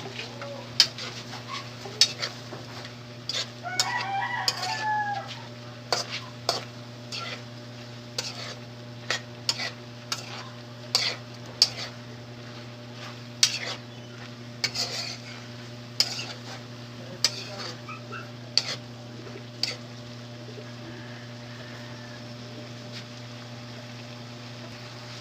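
A utensil knocking and scraping against a pan as pork innards (paklay) are stirred while they cook, in irregular sharp knocks that stop about 20 seconds in. A rooster crows once about four seconds in, over a steady low hum.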